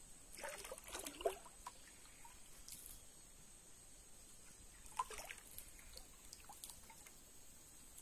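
Water trickling and dripping off a wet gillnet as it is handled over the side of a canoe, in two short spells about a second in and about five seconds in.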